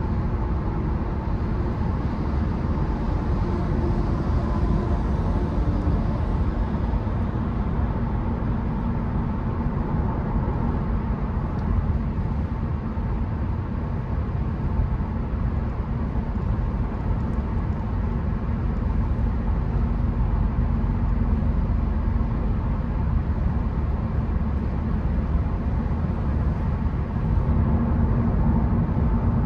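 Car driving on wet roads: a steady low rumble of engine and tyre noise with no distinct events.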